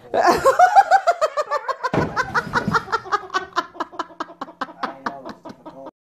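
A person laughing hard in a long run of quick, even pulses that slowly drop in pitch, with a low thump about two seconds in. The laughter cuts off abruptly near the end.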